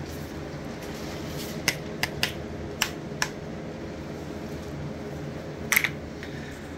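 Sharp plastic clicks from a handheld EVAP vent solenoid valve and its mounting bracket being worked by hand: a handful of single clicks about one and a half to three and a half seconds in, then a louder quick cluster near the end, over a steady low hum.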